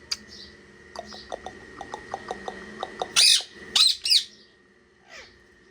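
Parrot calling: a quick run of short chirps or clicks, then three loud harsh squawks between about three and four and a half seconds in, and a softer call near the end.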